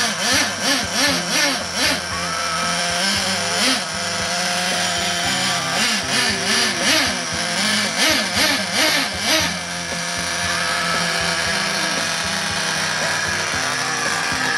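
Small engine of an RC snowmobile revved in quick bursts, about three a second, each rising and falling in pitch, then running steadily for the last few seconds.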